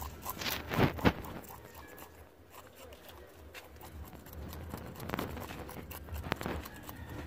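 Knife scraping scales off a fish, in short irregular scraping strokes with a few louder strokes about a second in and again later.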